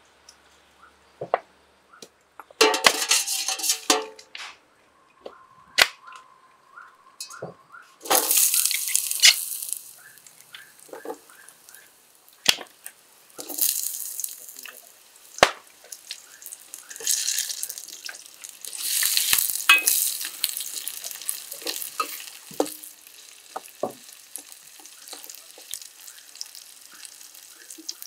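Sliced onion, chilies and other vegetables frying in hot oil in a stainless steel wok. Sizzling swells in several bursts, with clinks and scrapes of a utensil against the pan in between.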